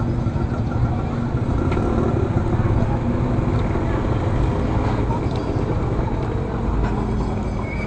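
Steady low rumble of street traffic and vehicle engines, with faint voices in the background.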